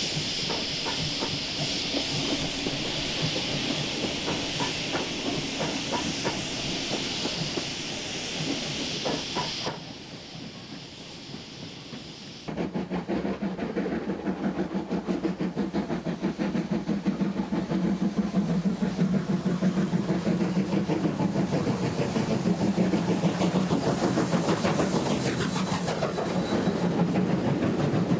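Steam locomotive hauling a train, with steam hissing over scattered rhythmic beats. About twelve seconds in, a louder train passes close with fast, even wheel clatter that builds towards the end.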